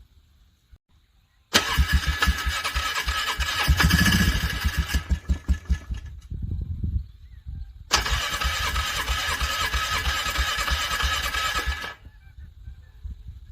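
A vehicle's starter cranking the engine over in two attempts, the engine struggling to start in the frigid cold. The first attempt starts about one and a half seconds in, swells around four seconds and then peters out; the second runs for about four seconds from around eight seconds in and cuts off suddenly.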